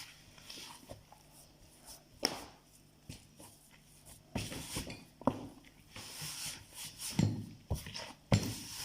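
Kitchen handling sounds as pastry dough is gathered and wrapped in plastic cling film: light knocks and clicks with short bursts of plastic rustling, busier in the second half.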